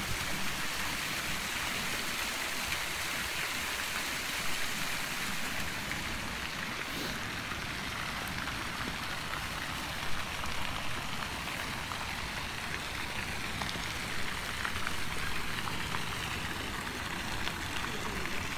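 Ornamental fountain jets splashing steadily into a stone-edged pond, an even rain-like hiss of falling spray.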